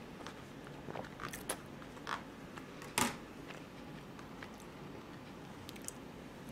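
Soft clicks and rustles of a plastic knife cutting a roll cake in its plastic tray, with one sharper click about three seconds in as the knife is set down in the tray. Quiet chewing and handling sounds in between.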